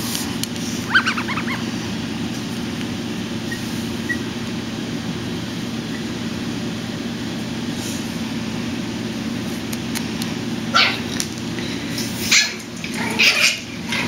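Six-week-old Pomeranian puppy giving a short high-pitched yip about a second in, then a few sharper yips and small barks near the end, over a steady low hum.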